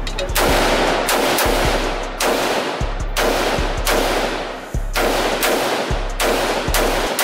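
A steady string of AR-style rifle shots, a little faster than one a second, each ringing out in the echo of an indoor range.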